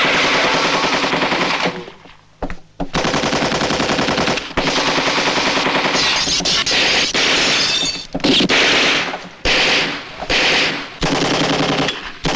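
Automatic gunfire in long rapid bursts with short breaks; about two seconds in the firing stops briefly except for a single shot.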